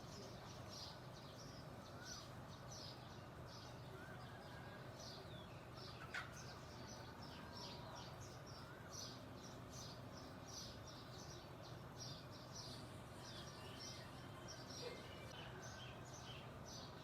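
Songbirds chirping, many short high chirps in quick succession, over a faint steady low background hum. A brief sharp tick about six seconds in is the loudest moment.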